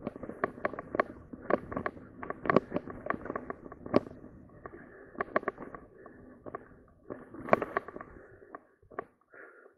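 Mountain bike riding over a dirt trail covered in dry leaves: tyres crunching and rustling through the leaves, with irregular clicks and knocks from the bike rattling over bumps, the sharpest about four seconds in and again near the end.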